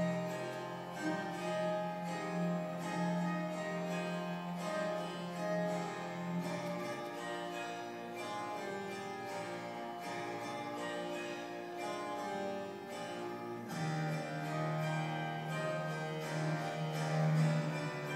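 Harpsichord playing quick running passages in a concerto with orchestra, over a held low note that drops out about seven seconds in and comes back about fourteen seconds in.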